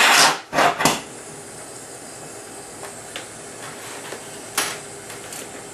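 Glassworking torch flames hissing steadily at a glass lathe. A loud rush of flame noise at the very start dies down within half a second, with a shorter surge just under a second in and a brief sharp flare about four and a half seconds in.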